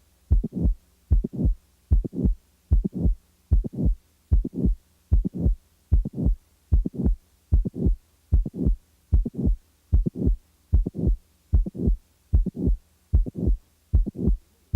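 Heart sounds as heard on auscultation in mitral valve prolapse: a regular lub-dub repeating a little faster than once a second, with a mid-systolic click and a late systolic murmur added between the first and second heart sounds. A faint steady hum runs underneath.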